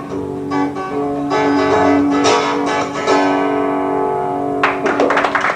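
Acoustic guitar strumming the song's closing chords, the last chord left ringing; then, near the end, an audience breaks into applause.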